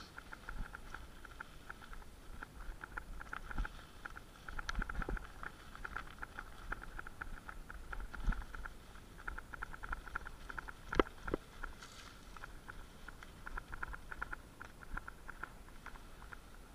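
Fast, uneven ticking and rustling with a few louder knocks, from movement along a forest trail deep in dry fallen leaves.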